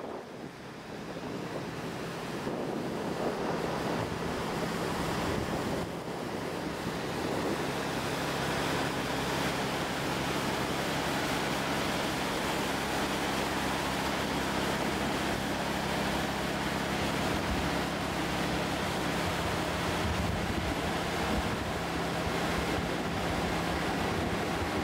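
Propeller wash from the bulk carrier FEDERAL ELBE churning the water at its stern: a steady rushing that builds over the first few seconds and then holds, with a low steady hum underneath.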